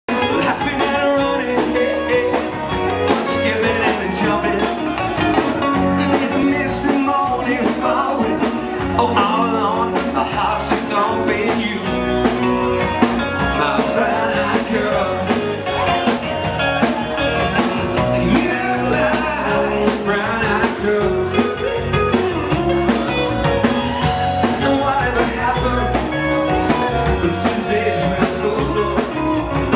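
A band playing upbeat rock-and-roll, guitar over a steady beat.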